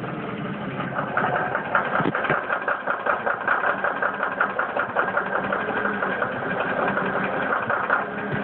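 1999 Ford Mustang 3.8 L V6 idling in drive with a rapid, rhythmic metallic knock that sets in about a second in and is pretty outrageous. The knock comes only in gear once the engine is warm, and the owner thinks it might be the transmission.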